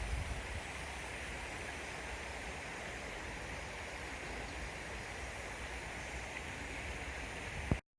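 Steady rush of flowing stream water, with some low wind rumble on the microphone in the first second. A short thump comes near the end, and then the sound cuts off abruptly.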